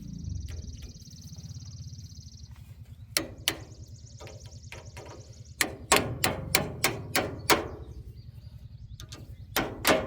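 Hammer blows pounding a rod out of a tractor brake assembly: two strikes about three seconds in, then a quicker run of about seven, about three a second, and more starting near the end.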